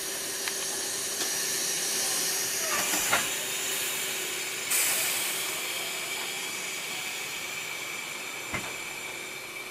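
Passenger train running, heard from an open carriage window: a steady rushing hiss of air and wheels with a faint steady hum. A few sharp clicks come through, a louder rush arrives about halfway, and the sound slowly grows quieter toward the end.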